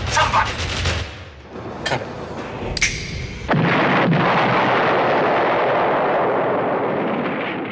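A car exploding: two sharp bangs, then a sudden loud blast about three and a half seconds in whose roar slowly dies away over the next few seconds.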